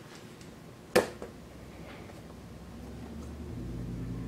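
Plastic quadcopter propeller pressed down onto its motor shaft: one sharp click about a second in, with a softer tick just after. A low hum rises near the end.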